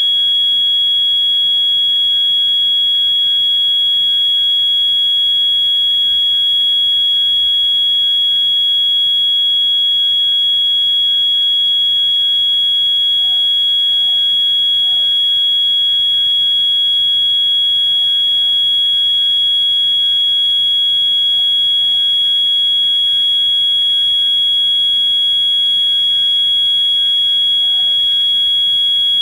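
EST 692-7A-HSR fire alarm sounding continuously during a fire drill: one unbroken, piercing high-pitched tone.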